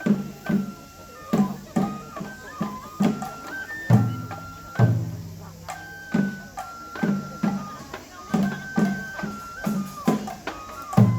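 Japanese festival music for a lion dance: taiko drum beats, about two a second, under a high transverse-flute melody stepping between a few notes.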